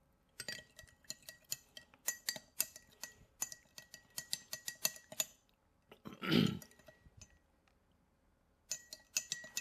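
Spoon clinking against a glass, a quick run of light clinks with a faint ring for about five seconds. A short dull sound comes about six seconds in, and the clinking starts again near the end.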